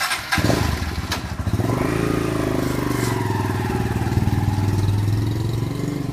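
Motorcycle engine coming in loud, rising in pitch as it speeds up, then running steadily, with a couple of sharp clicks about a second in.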